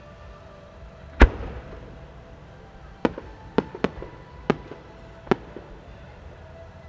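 A 12-inch (10-gō) Japanese firework shell being fired. There is one deep boom a little over a second in, the shell's launch from its mortar, then six sharp cracks between about three and five and a half seconds in as the small bursts attached to its rising trail go off.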